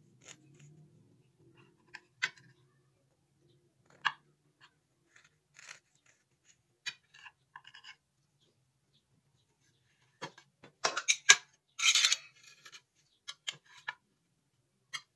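Knife cutting through a baked ring cake and scraping and tapping against the plate beneath: scattered short scrapes and clicks, with a denser run of louder scraping near the end.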